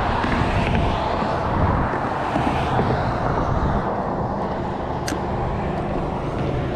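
Steady road traffic noise from cars and trucks on the bridge, with a low engine hum coming in about halfway through. A single sharp click comes about five seconds in.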